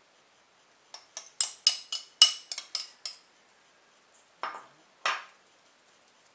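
Metal spoon striking and scraping a ceramic bowl: a quick run of about ten ringing clinks over two seconds as the seasoning mix is knocked out onto ground pork. Two short scrapes follow.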